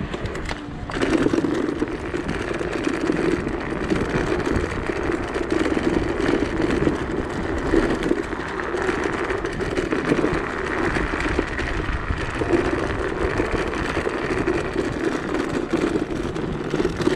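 Steady riding noise from a Sherman electric unicycle on the move: a rolling hum of the tyre on the road with wind rush, which comes up about a second in and holds.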